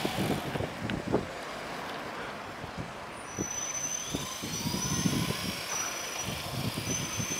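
Small radio-controlled toy helicopter hovering low, its motor and rotor giving a thin, steady high whine with a rising whine about four seconds in, over a low rumble of street traffic.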